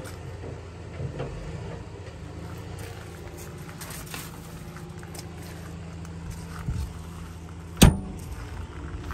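Steady, even hum of an idling diesel engine, likely the Case CX90's own. A single sharp knock comes near the end.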